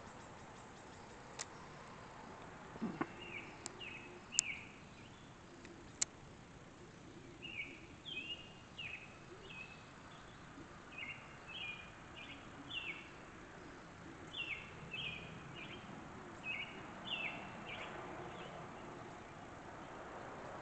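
A songbird calling repeatedly in short, high chirps, the notes coming in quick runs of two or three, over a faint outdoor background. A few sharp clicks sound in the first six seconds.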